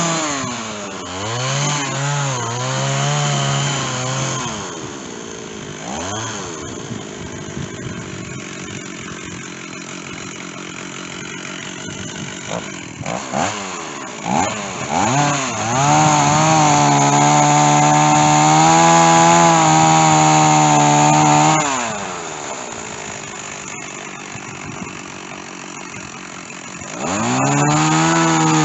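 Stihl two-stroke chainsaw revving in short blips, dropping to idle, then held at high speed for about five seconds before falling back to idle and revving up again near the end.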